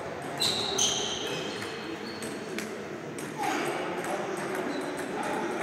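Table tennis ball struck by bats and bouncing on the table, two sharp ringing pings about half a second and a second in, then fainter clicks, over the murmur of a large sports hall.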